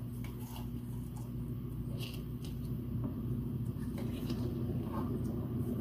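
Faint scattered clicks and rustles of paper and small craft tools being handled, over a steady low hum.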